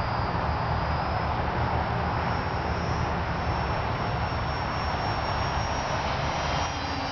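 ParkZone Mosquito RC plane's twin electric motors flying overhead, a faint high whine that drifts slowly in pitch, over a steady noisy rush.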